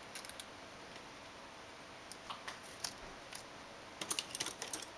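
Scattered light clicks and taps of plastic laptop display parts being handled and realigned in the back cover, with a quick run of clicks about four seconds in as a screwdriver is picked out from among other tools.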